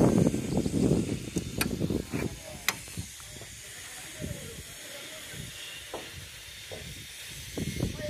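Wind buffeting the microphone in gusts for the first couple of seconds, then settling to a steadier faint hiss. Two sharp clicks come through about one and a half and two and a half seconds in.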